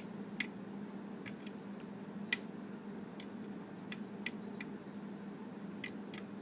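Light, irregular metallic clicks of a hook pick working the last pin, a spool pin, in a pin-tumbler challenge lock held under tension: about ten scattered ticks, the loudest about two seconds in, over a steady low hum.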